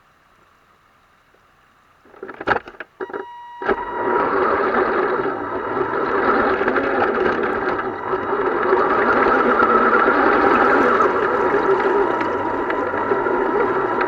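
Rushing water of a waterfall, which starts loud about four seconds in after a few knocks and crackles, with a steady high whine running over it.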